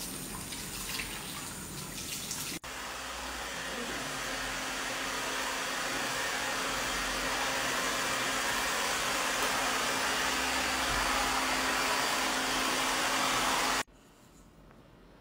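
Water spraying from a salon shampoo-basin spray head onto hair, then after a cut about two and a half seconds in, a hair dryer blowing steadily and growing slightly louder, until it cuts off near the end.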